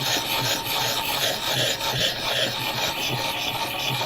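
A diamond sharpening stone rasping against a steel knife blade in quick repeated strokes, about three a second, grinding the edge to raise a burr.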